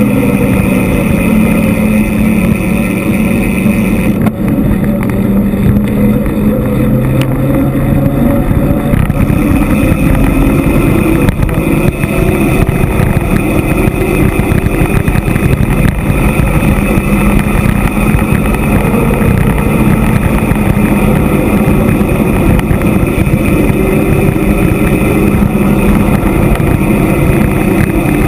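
Loud, steady wind noise on a bike-mounted camera's microphone as an e-mountain bike descends a paved mountain road at speed, with a low wavering hum underneath.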